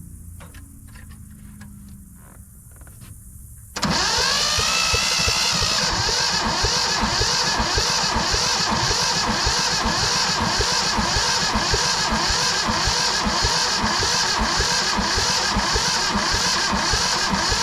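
Yanmar 1500 tractor's diesel engine being cranked by its electric starter with the decompression levers open. After a few light clicks, the starter cuts in suddenly about four seconds in, whines up and turns the engine over in a steady rhythm for about fourteen seconds without it catching, stopping near the end.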